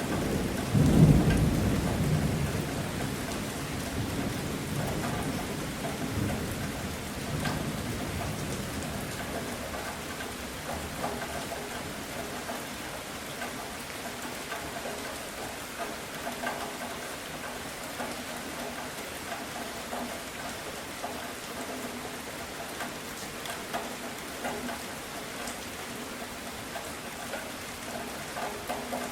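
Thunderstorm: a loud clap of thunder about a second in rolls off into a low rumble that fades over several seconds, over steady rain falling and pattering on surfaces.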